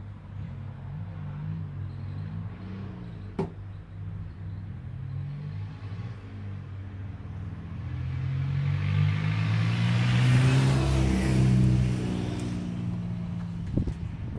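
A motor vehicle's engine running nearby, growing louder as it passes in the second half and then fading. There is a sharp click about three seconds in and a couple of knocks near the end.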